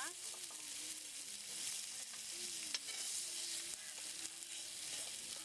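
Rohu fish steaks sizzling steadily in oil on a flat dosa griddle, while a metal spatula lifts the fried pieces off, with one sharp tap near the middle.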